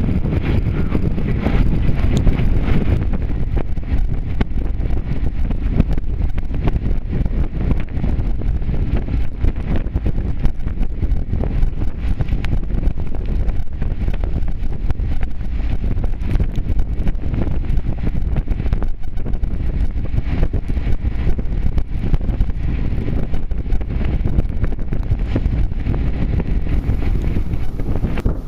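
Wind buffeting the microphone on the deck of a sailing yacht at sea: a loud, continuous low rumble with a rapid, gusty flutter.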